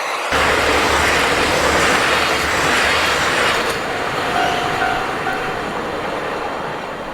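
Diesel train passing at speed on the line, a steady loud rush of wheel and rail noise that swells suddenly just after the start and slowly eases off, with a faint brief squeal around the middle.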